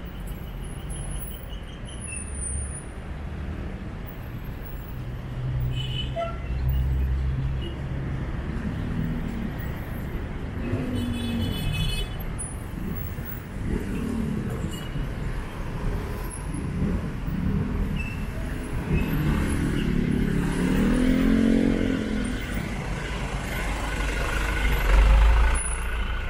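Road traffic: motor vehicles passing along a street, their engines rising and falling in pitch over a steady low rumble.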